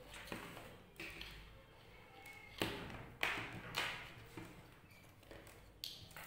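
Hands handling a multimeter and its test leads on a wooden bench: irregular taps and knocks, about seven of them, with the loudest three close together in the middle.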